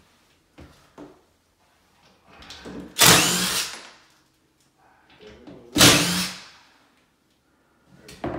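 A cordless drill run in two short bursts, about three seconds apart, with a few light knocks before them.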